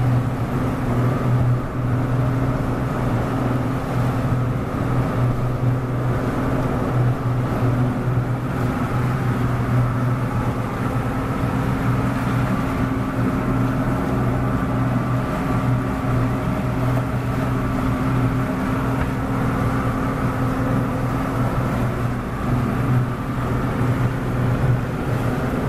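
Walkaround boat's outboard motor running at a steady cruising speed under way, a constant low drone that holds the same pitch throughout.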